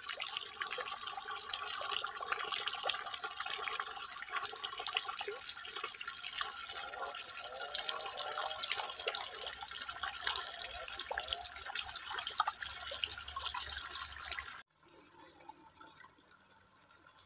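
Stream of water pouring from a DIY barrel pond filter's outlet and splashing steadily into the pond. About fifteen seconds in it cuts off abruptly to a faint hush.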